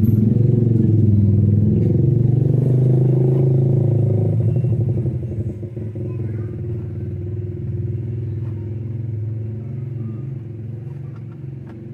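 Hyundai Porter's four-cylinder turbo-diesel engine running, held at raised revs with its pitch wavering for the first four seconds or so, then easing down to a steadier, quieter idle.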